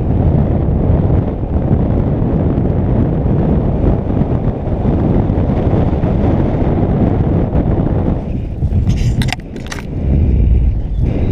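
Wind buffeting a GoPro's microphone as a paraglider takes off and flies: a loud, steady low rumble. Near the end it eases for a moment and a few short clicks come through.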